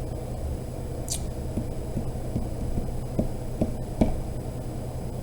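Steady low hum with a run of soft, short ticks, a few a second, in the second half.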